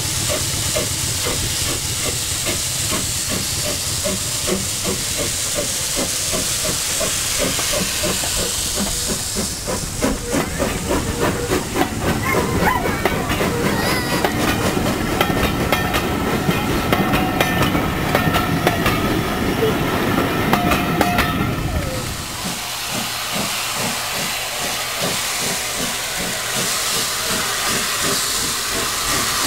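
Steam locomotive hissing steam steadily. Through the middle stretch a fast, even beat and a few thin steady tones join in, then the hiss settles back on its own.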